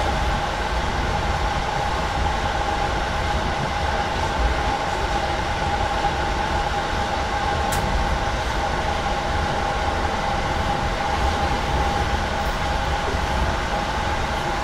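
Regio passenger train running at speed, heard from inside the carriage: a steady rumble of wheels on rail with a constant hum, and one short light tick about halfway through.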